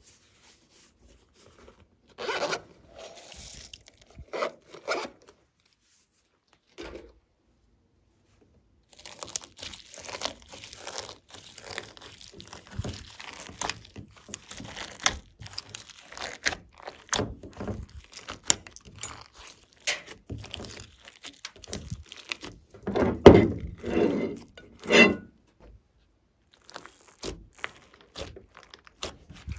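Glossy slime being squished, stretched and folded by hand, with a run of quick sticky clicks and pops. There are louder squishes a couple of seconds in and again about two-thirds of the way through.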